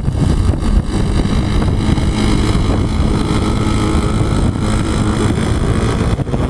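Heavy wind buffeting the microphone, over the faint, steady high-pitched drone of a model aircraft's motor flying overhead.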